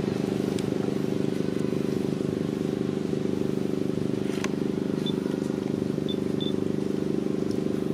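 A steady low motor hum with no change in pitch or loudness, like an engine idling nearby. A few faint short high peeps sound over it about five to six and a half seconds in.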